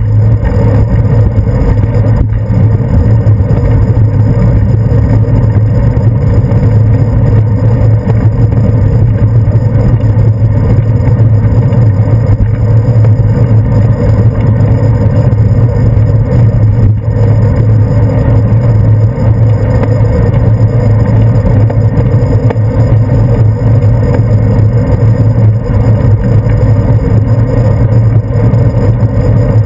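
Steady loud rumble of wind and road noise picked up by a handlebar-mounted GoPro Hero 2 in its housing while cycling, with motor traffic running alongside. A couple of light knocks cut through it.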